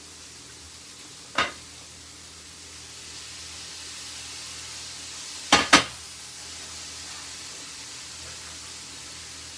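Cauliflower rice sizzling steadily in a frying pan, growing slightly louder about three seconds in. Over it come one sharp knock about a second and a half in and a louder pair of knocks around the middle, from kitchenware being handled.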